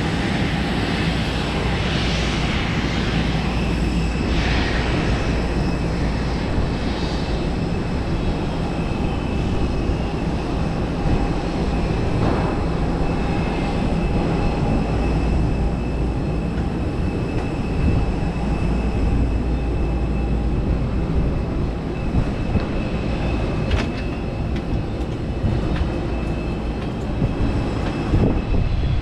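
Steady whine and rumble of jet aircraft and ground equipment running on an airport apron, with several steady high tones over the rumble.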